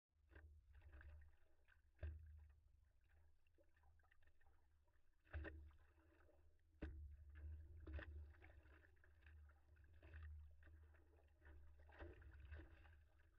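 Seawater lapping and slapping against a standup paddleboard under way, over a low steady rumble, with about six sharper splashes a second or two apart.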